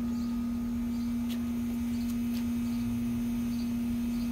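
A steady low hum, one unchanging tone, with faint high chirps now and then.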